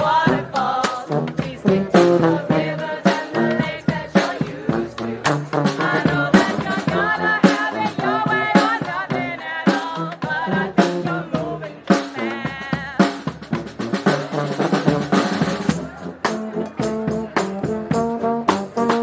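Brass band playing, with snare and bass drum hits keeping a steady beat under sustained horn lines.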